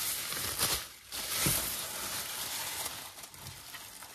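Thin plastic bag rustling and crinkling in several bursts as it is wrapped around a raw whole chicken, loudest about a second and a half in.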